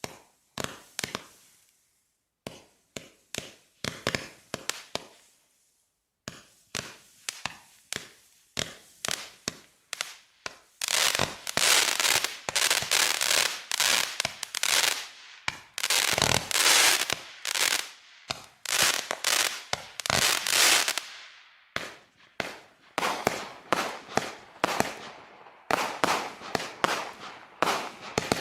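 Consumer fireworks going off: a run of sharp pops and bangs, thickening into a dense stretch of crackling in the middle, then thinning back out to separate reports.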